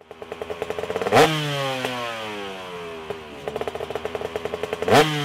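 A motorcycle engine revved twice. Each time, quickening firing pops lead into a sharp rise in revs, and the revs then fall slowly away.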